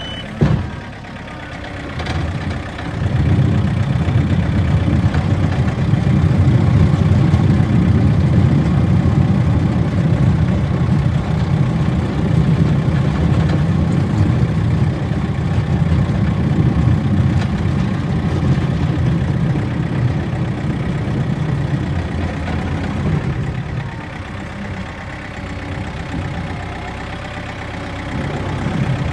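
Backhoe's diesel engine working hard, rising in level about three seconds in and easing off a little near the end. A single loud knock comes about half a second in.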